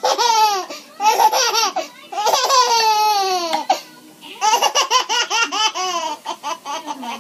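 Baby laughing hard in bursts: a few high, falling-pitched laughs, one held for about a second and a half, then a quick run of short staccato laughs about halfway through.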